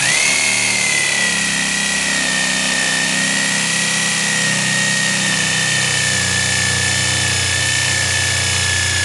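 Electric jigsaw starting up suddenly and cutting lengthwise along a clamped wooden board, the motor running at a steady high whine under the blade's rapid up-and-down strokes.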